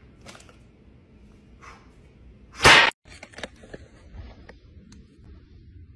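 One loud, sharp smack about two and a half seconds in, among faint taps and clicks.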